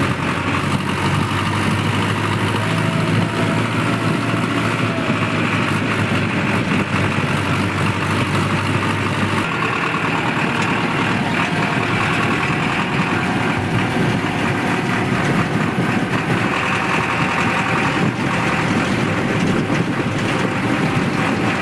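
Powertrac tractor's diesel engine running steadily as the tractor is driven along; its low steady hum changes about nine and a half seconds in.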